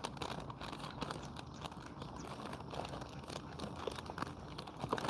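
Steady crackling, rustling noise made of many small irregular clicks, with a dog panting through it.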